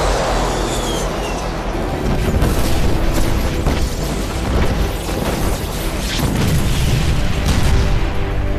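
Film battle sound: a run of explosions and booms with a steady low rumble, over a musical score.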